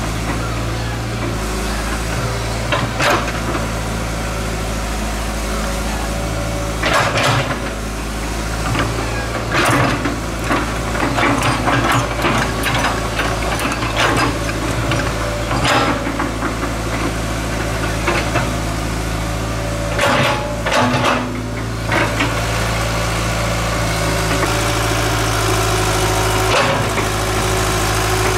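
Hitachi excavator's diesel engine running steadily, with scrapes and clanks at irregular intervals as the bucket digs soil and dumps it into a truck.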